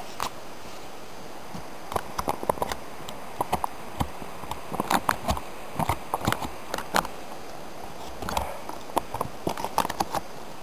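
Foil-lined Mountain House freeze-dried meal pouch crinkling and rustling as it is handled and opened, a run of irregular sharp crackles.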